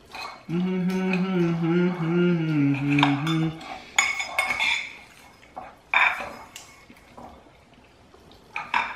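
A person hums a long, slightly falling note for about three seconds. After that a knife and fork clink and scrape against ceramic bowls a few times.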